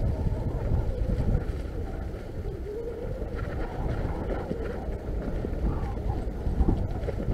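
Full-suspension mountain bike riding a dirt singletrack covered in dry leaves: steady wind rumble on the microphone over the tyres rolling through the leaf litter, with a louder knock from a bump near the end.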